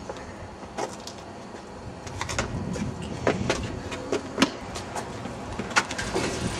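Scattered sharp knocks and clanks over a steady low rumble, coming more often from about two seconds in, as of someone climbing over metal railings and a fence.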